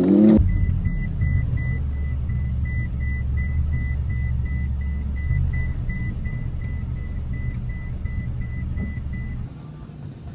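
Car engine running with a steady low rumble, under a regular electronic warning beep repeating about two to three times a second. Beep and rumble stop together about a second before the end.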